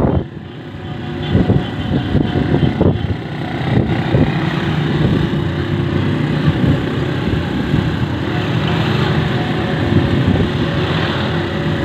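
Small motorcycle engines of motorcycle-sidecar tricycles running steadily while riding in a convoy, heard from a moving vehicle with wind and road noise on the microphone. A few short thuds come in the first few seconds.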